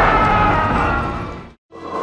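A loud, noisy sound effect from the Heisei Gamera films that fades out about one and a half seconds in; after a short silence the next effect starts near the end.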